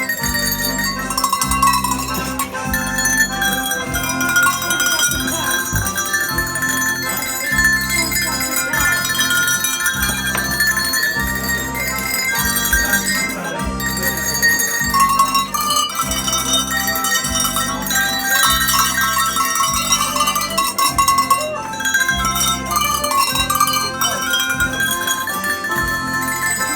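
Tuned Alpine cowbells rung by hand, playing a melody with many overlapping ringing notes over a steady, repeating bass accompaniment.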